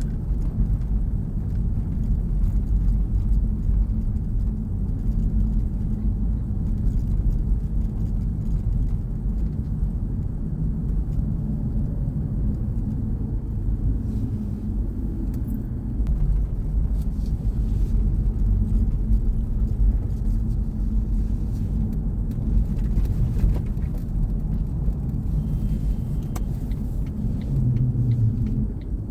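Steady low rumble of a car being driven, tyre and engine noise from a moving car.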